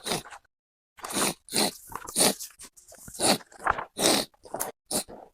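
A person making loud, wet sniffling and open-mouthed chewing noises in a rapid string of short, irregular bursts.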